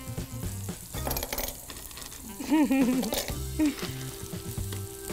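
Meat sizzling as it fries in a hot skillet, under background music with a steady beat. A brief voice sound comes about halfway through.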